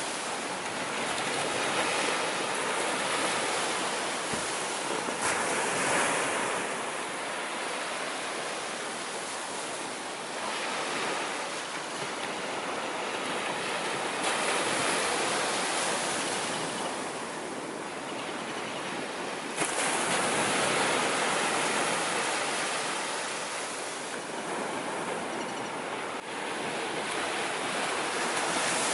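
Sea waves surging and washing in, a steady rush of surf that swells and eases every several seconds.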